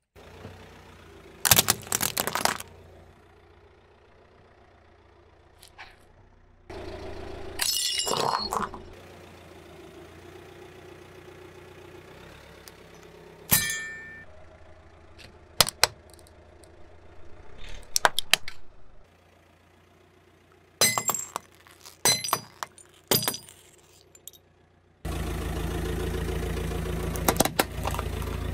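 Car tyre crushing plastic toys: a series of about ten sharp cracks and crunches, one near the middle a short metallic clink with a ringing tone like a toy xylophone's bars. A steady low rumble from the rolling car carries the last few seconds.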